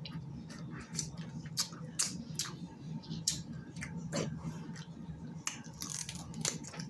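Close-miked eating of snow crab legs: irregular sharp wet clicks and smacks, two or three a second, over a steady low hum.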